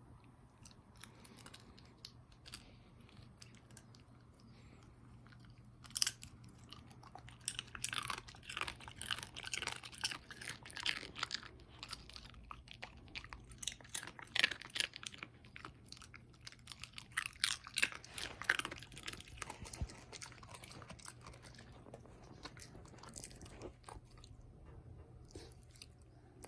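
A dog chewing crisp, crusty pieces of baked bread, crunching bite after bite with sharp crackling snaps. The crunching is sparse at first, comes thick and loud from about six seconds to twenty seconds in, then tails off to occasional chews.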